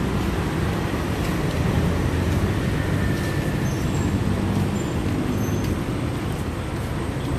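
Steady city road traffic noise, a constant low rumble with no single event standing out.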